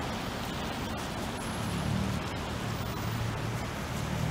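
Street traffic running steadily, with a low engine hum.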